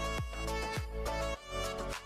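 Background outro music: an instrumental tune with sustained notes over a regular beat.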